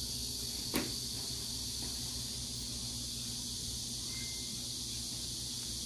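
Steady high-pitched drone of insects, likely cicadas or crickets in the surrounding trees, with a single sharp click about a second in.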